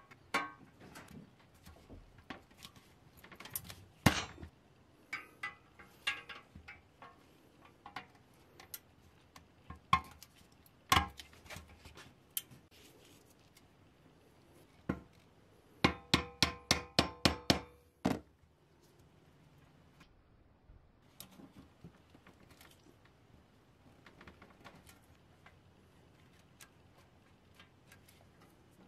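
Hard plastic toy stake-rack panels clicking and knocking as they are fitted onto the truck bed and seated. A quick run of about nine sharp, ringing taps comes a little past the middle.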